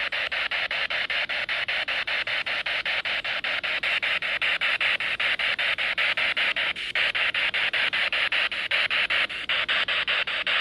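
Spirit box scanning through radio stations: a steady hiss of static chopped about five times a second as it sweeps.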